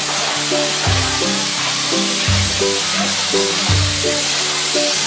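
Background music with a bass line that changes note about every second and a half and a melody above it, over a steady hiss.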